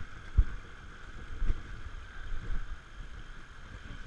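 Footsteps on creek-bed boulders, heard as dull low thuds about once a second through the worn camera, over a steady high hiss.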